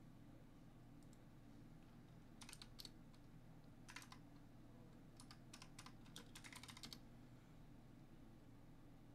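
Faint computer keyboard typing: quick clusters of keystrokes from about two and a half to seven seconds in, as a web search is typed. A faint steady low hum runs underneath.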